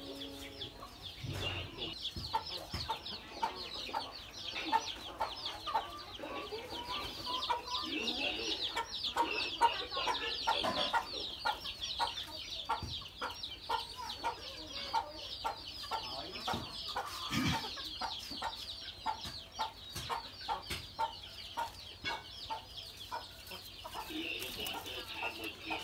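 Birds chirping densely and continuously in high, quick notes, with a clucking note repeated about once a second, typical of poultry. A few knocks sound now and then.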